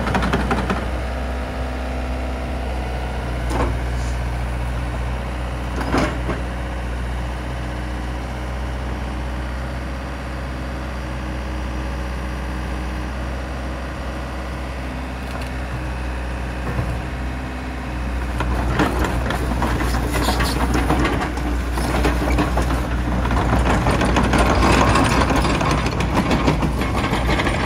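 Yanmar VIO80 midi excavator's diesel engine idling steadily, with a couple of sharp clicks. About two-thirds of the way through it gets louder and busier as the machine is worked.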